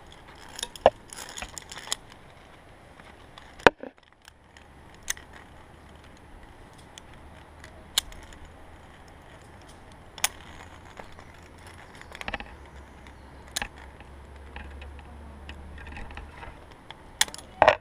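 Metal clinks and clacks of via ferrata carabiners and gear against the steel safety cable and iron rungs. They come as sharp single clicks every couple of seconds, with a quick cluster near the start and another near the end.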